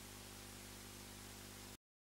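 Near silence: faint steady hiss with a low hum in the background, which cuts off to complete silence near the end.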